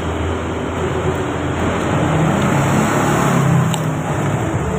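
Road traffic going past: a steady noise of traffic, with one vehicle's engine swelling about two seconds in and fading away near the end.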